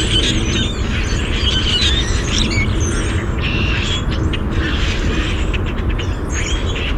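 A mixed flock of red-winged blackbirds, common grackles and brown-headed cowbirds calling together: many overlapping squeaks, whistles and chattering calls over a steady low rumble.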